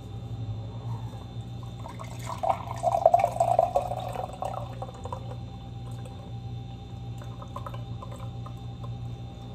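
Water poured from a kettle through a mesh tea strainer into a glass. The splashing stream starts about two seconds in and is loudest for the next few seconds, then goes on as a softer trickle as the glass fills with tea.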